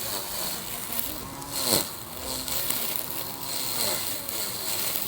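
Small lawn mower's motor running, its pitch rising and falling again and again as it cuts, with a sharp drop about a second and a half in, over a steady high whine.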